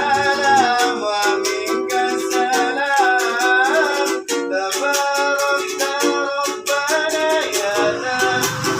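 Music from a small strummed string instrument playing a steady rhythmic chord accompaniment, with a melody line moving above it.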